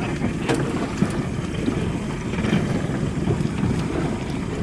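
Wind buffeting the microphone over a steady low rumble, with a few faint clicks.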